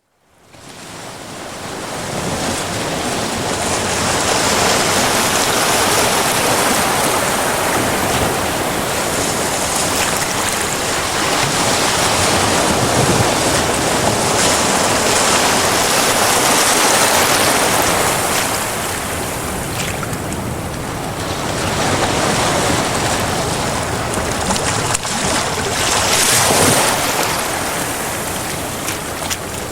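Sea waves washing and breaking over rocks on a rising tide, a continuous rushing wash that swells and eases in slow surges, with brighter spells of hissing spray as waves break. Fades in over the first couple of seconds.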